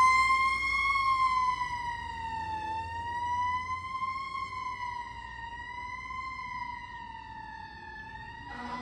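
Fire engine's siren sounding a slow, gently wavering wail that fades steadily as the engine moves away.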